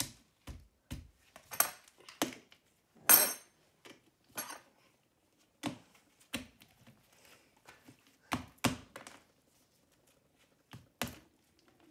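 Chunks of dry ice knocking and clinking as they are pushed one by one into a plastic soda bottle half filled with water. The knocks are short, irregular and separate, about a dozen of them, a few with a brief rattle.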